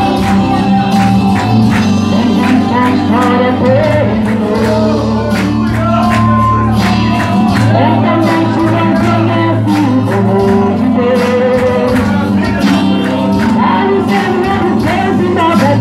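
A woman singing a worship song into a microphone over backing music with steady bass notes and a regular beat.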